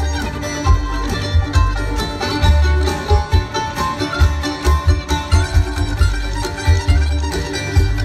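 Live bluegrass band playing through a concert PA: banjo, mandolin, fiddles and guitars over upright bass, with heavy booming bass notes throughout.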